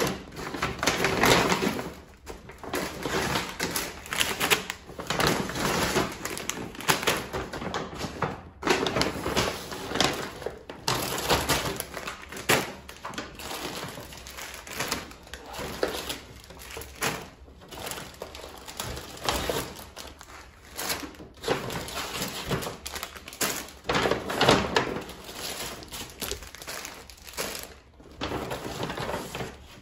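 Paper grocery bag and plastic-wrapped food packets rustling and crinkling as groceries are unpacked, with irregular knocks as items are set down on the kitchen counter.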